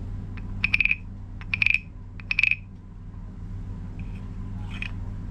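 Wooden frog guiro croaking: a wooden stick scraped along the ridged back of a small carved wooden frog, imitating a real frog's croak. Three quick ratcheting croaks in the first few seconds, then a fainter one near the end.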